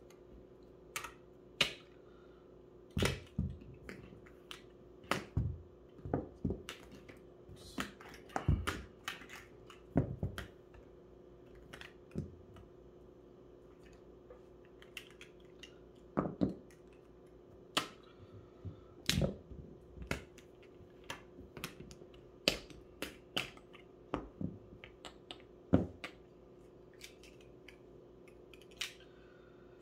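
Backgammon checkers clicking against one another and tapping down onto the board as they are handled and set out by hand. The clicks are sharp and irregular, some single and some in quick clusters.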